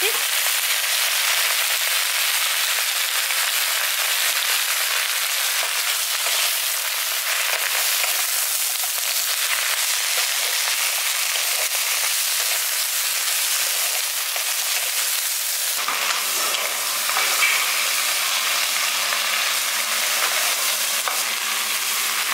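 Fresh bottle gourd leaves and stems sizzling in hot oil in a kadai, with a steady frying hiss, while a wooden spatula stirs them.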